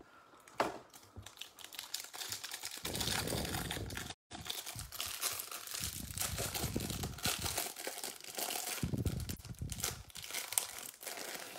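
Crinkling and tearing of a thin plastic wrapper as it is pulled off a stack of football trading cards taken from a hanger box.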